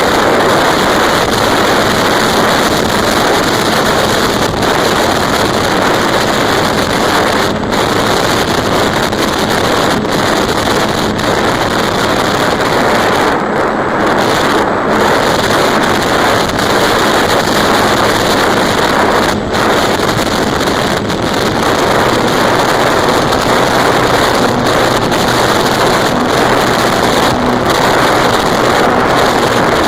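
Wind rushing over an onboard camera microphone, with the electric motor and propeller of an E-flite Apprentice RC trainer plane running in flight. The noise is steady and loud, with a few brief dips.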